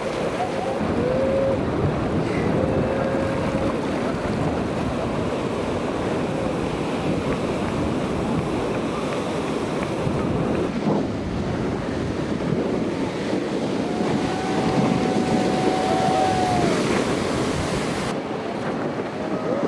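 Heavy ocean surf rushing and breaking, with wind buffeting the microphone. A few short held tones sit above it, the longest lasting about three seconds near the end.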